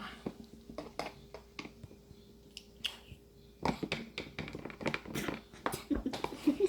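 A spoon clicking and tapping against a bowl, adding paint to a glue-and-water slime mix: scattered light clicks at first, turning into a busy run of taps and scrapes from about halfway.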